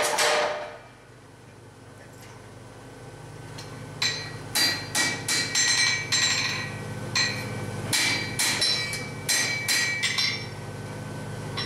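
The power hammer's rapid blows on the red-hot bar die away in the first second, leaving a steady low hum. About four seconds in, a hand hammer starts striking the hot iron bar on the anvil: ringing metal-on-metal blows, about three a second, in short runs.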